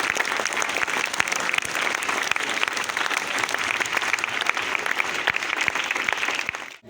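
Audience applause: many hands clapping steadily, fading out suddenly near the end.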